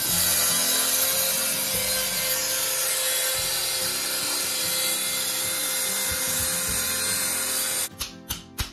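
A power tool running steadily on a hardwood floorboard being cut out for replacement, stopping abruptly near the end. Plucked guitar music follows.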